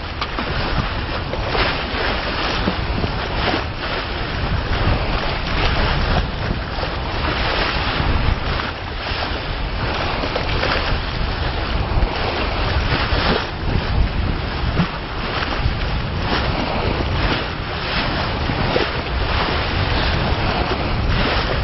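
Wind buffeting the microphone over water rushing and splashing along a sailboat's bow as it moves under sail, with irregular louder surges.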